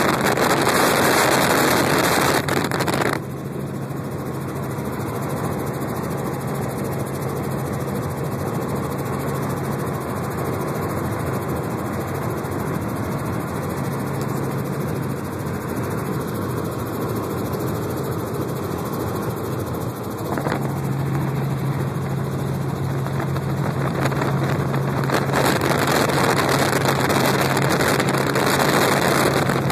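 Small helicopter's engine and rotor droning steadily, heard inside the cabin in flight, with a rushing noise over it that is louder for the first few seconds and again in the last third.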